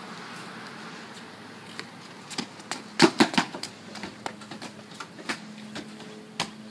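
A series of scattered knocks and clicks over a faint steady hum, with a quick cluster of louder thumps about three seconds in.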